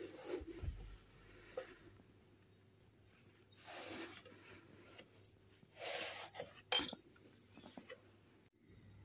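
Scrubbing and rubbing noises while cleaning a household appliance: two short rasping rubs about two seconds apart, a sharp click just after the second, and a few light knocks.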